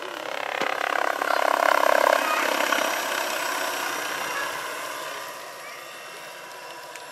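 Large electric RC scale model helicopter, a Vario Bell 212 with a two-blade main rotor, flying past. Its rotor and motor sound swells to a peak about two seconds in, then fades away.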